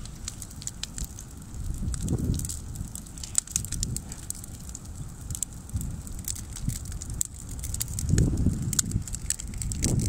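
Brush-pile bonfire of dry branches crackling, with many sharp pops throughout, over a low rumble that swells about two seconds in and again near the end.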